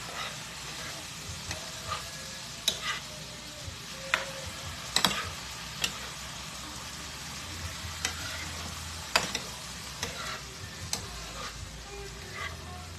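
Shrimp fried rice sizzling in a pan as it is stirred, with scattered sharp clicks and scrapes of the utensil against the pan.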